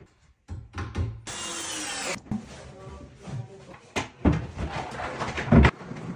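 A cordless drill runs for about a second, its pitch rising and then holding as it drives a screw through two boards of a kitchen corner post. Wooden knocks and thumps follow, the loudest near the end, as the cabinet carcasses are handled and pushed into place.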